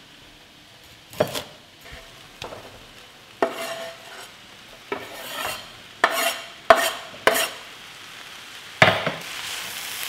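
Irregular knocks and clatter of a wooden spatula against a non-stick wok and a wooden chopping board as chopped vegetables are tipped into the pan, several knocks ringing briefly. Near the end a sizzling starts up as the vegetables hit the hot oil.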